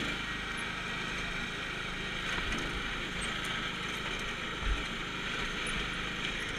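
Riding lawn mower's engine running at a steady speed as it drives over rough dirt and brush, with one thump about three-quarters of the way through.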